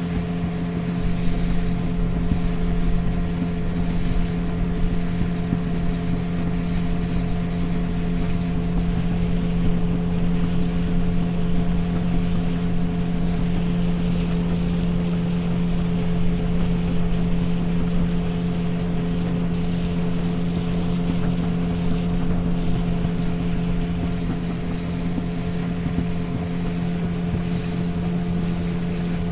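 Motorboat engine running steadily at cruising speed with an even drone, heard from on board over rushing water and wind noise.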